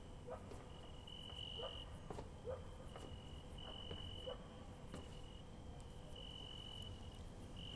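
Faint crickets chirping outside an open window at night: a short high trill about every second.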